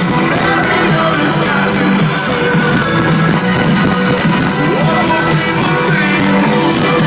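Live rock band playing loud over a concert sound system, heard from within the crowd, with drums, steady and unbroken.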